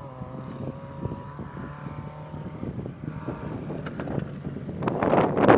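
Rally car engine held at high revs on a dirt stage, a steady note that shifts slightly in pitch, growing louder near the end with a rush of noise.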